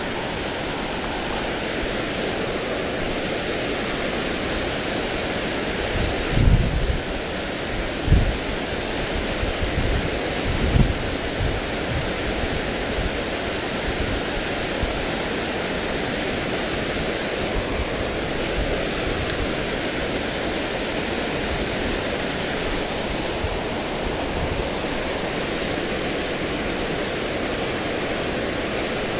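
Steady rushing of water pouring over a low dam spillway into the creek pool. A few low thumps break through about six to eleven seconds in.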